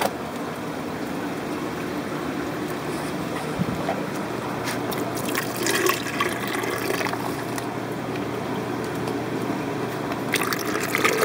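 Water poured from a plastic fish bag into a clear plastic container, splashing and trickling in bursts, over a steady background hum and rush.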